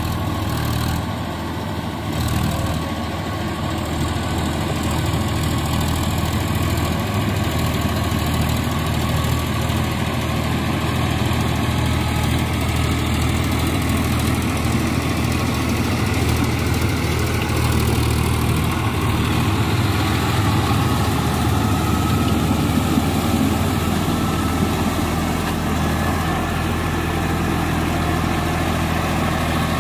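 Massey Ferguson tractor's diesel engine running steadily under load as it pulls a rotary tiller through a flooded paddy field. The sound grows a little louder as the tractor comes closer.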